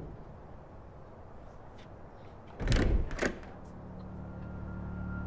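A door opening with a short clatter of knocks and rattles about two and a half seconds in. Low steady suspense-music tones then begin faintly and build near the end.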